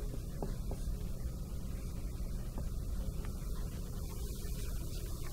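Steady low hum of room noise, with a few faint short squeaks of a marker writing on a whiteboard.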